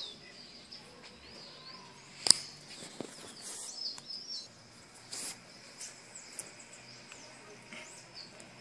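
Small birds chirping repeatedly in short quick calls, with a sharp click about two seconds in.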